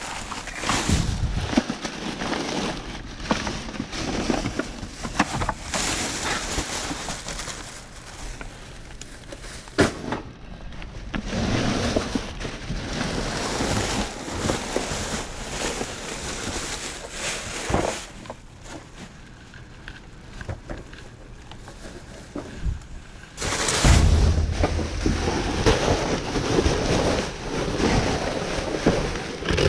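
Plastic garbage bags rustling and crinkling as they are pulled about and rummaged through, with scattered knocks and handling bumps. From a little over three-quarters of the way in it gets louder, with heavy low bumps.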